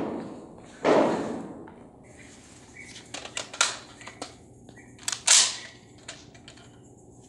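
Rifle shots in an indoor range: two shots about a second apart, each with a fading, echoing tail, then a few sharp clicks and a third, sharper shot about five seconds in.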